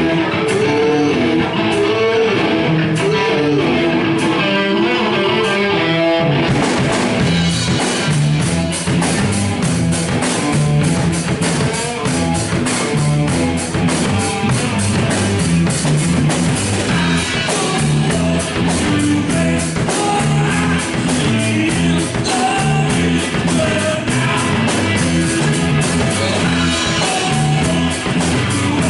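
Live rock band playing: a guitar leads on its own at first, then about six seconds in the drums and the full band come in with a steady beat.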